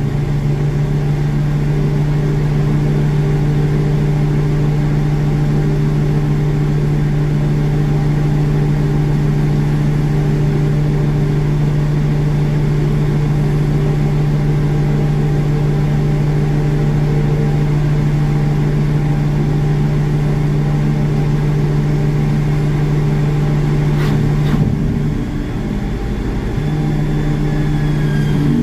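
Pushback tug's engine idling with a steady low hum. About 24 seconds in there is a knock, and the hum wavers for a couple of seconds before settling again.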